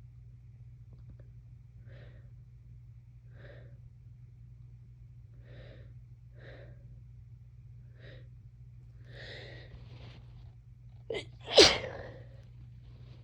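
A person with a congested head cold breathing faintly in short catches every second or two, the breaths growing heavier, then a quick sharp intake and one loud sneeze near the end.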